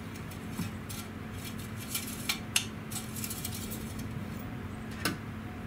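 Metal engine oil dipstick being wiped and slid back into and out of its tube to check the oil level, giving light metallic clicks and scrapes: a cluster about two to three seconds in and one more near the end. A steady low hum runs underneath.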